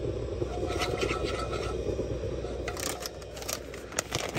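A spatula scraping and stirring a roux in a cast-iron skillet. About three seconds in it gives way to sharp crinkling clicks as a plastic bag of shredded cheese is handled and pulled open.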